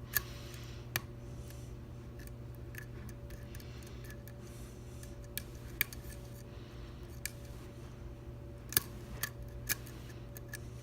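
Scattered sharp little metallic clicks and ticks of lock picks against the Assa V-10 lock and its parts, irregular and a second or more apart, over a steady low hum.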